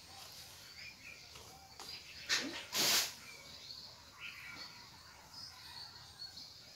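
A wet garment is shaken out or flapped onto a clothesline, a short loud swish about three seconds in, just after a smaller snap. Birds chirp faintly throughout.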